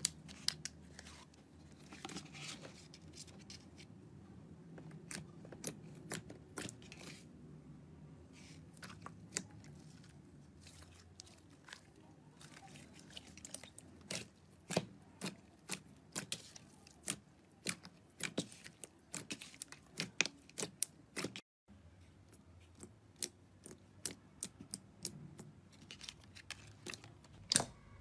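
Hands kneading and pressing slime, with many sharp, irregular clicks and pops as trapped air squeezes out of it, over a soft squelching rustle. The clicking grows denser in the second half, with a brief break about 21 seconds in.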